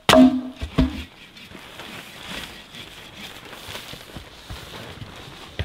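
Two knocks with a short wooden ring, about three-quarters of a second apart, as a piece of firewood is struck down against a stump; the first is the loudest. Then a steady, even hiss.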